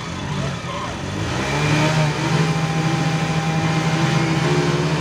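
Two 100cc single-cylinder commuter motorcycle engines revving hard together, climbing about a second and a half in and then held high and steady as the bikes pull against each other on a tow rope.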